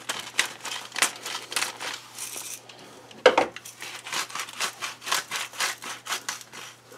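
Hand-twisted pepper mill grinding over a bowl in quick crunching clicks. About three seconds in there is a knock as something is set down on the counter, then a second run of grinding clicks.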